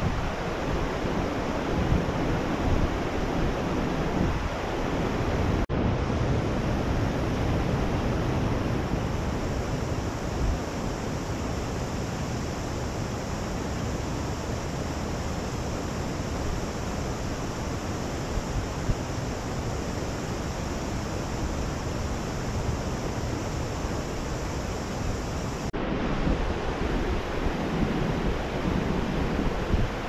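Steady rush of water from a mountain spring stream, with two momentary breaks about 6 and 26 seconds in.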